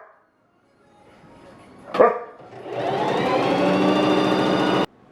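A dog barks once about two seconds in. Then the Singer Heavy Duty 4411 sewing machine's motor runs up to speed and sews steadily for about two seconds before stopping abruptly.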